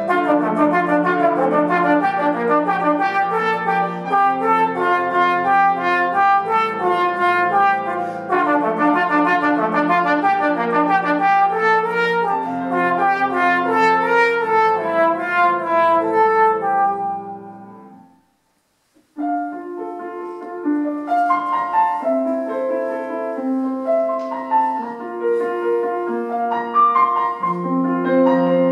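Trombone playing a solo line over grand piano accompaniment. The music fades out a little over halfway through, stops for about a second, then resumes. Near the end the piano plays on while the trombone rests.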